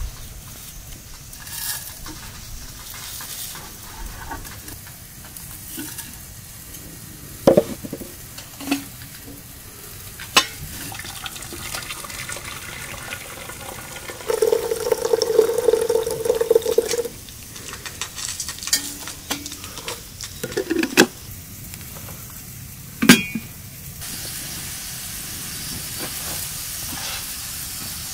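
Cooking in a pan: a utensil stirring and scraping over sizzling food, with several sharp knocks of metal on the pot. About halfway through comes a loud scrape with a steady pitch lasting about three seconds, and near the end a steady sizzle sets in.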